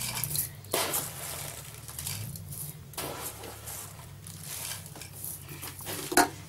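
Dry buckwheat flakes rustling as they are scooped with a metal spoon and tipped into a bowl, in a few short, soft pours over a low steady hum.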